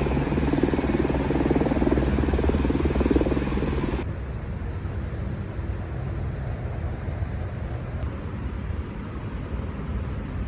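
A vehicle engine running with a dense, steady rumble; about four seconds in the sound cuts to quieter, steady traffic-like engine noise with a few faint high chirps.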